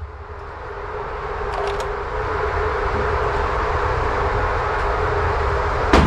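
Indoor range's motorized target carrier running along its overhead track, a steady mechanical running noise with a held hum that slowly grows louder as the paper target is brought back to the shooting booth. A single sharp knock near the end.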